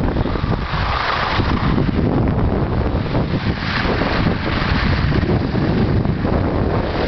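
Wind buffeting the camera's microphone: a loud, steady rumble, with hissier swells about a second in and again around four seconds.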